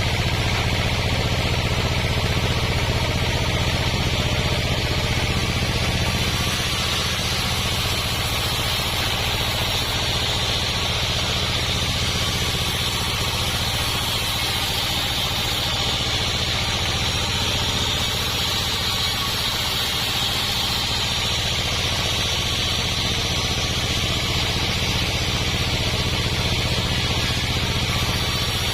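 Engine-driven sawmill running steadily, a low engine hum under a higher, even hiss.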